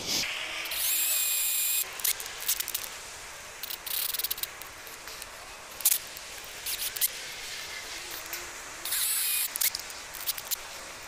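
DeWalt 18V XR cordless drill driver running in two short bursts, one about a second in and a shorter one near nine seconds, each a steady motor whine. Scattered clicks and knocks in between.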